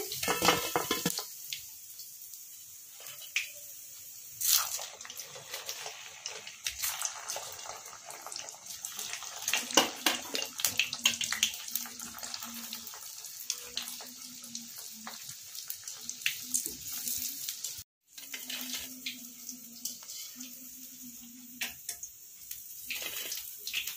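Cabbage Manchurian balls sizzling and crackling in hot oil during their second fry on a high flame, with the wire skimmer now and then clicking against the wok.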